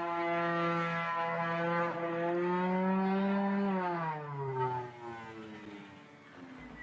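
Electric hook-and-loop power sander running with a steady hum, then switched off about three and a half seconds in, its pitch sliding down as it winds down and fades.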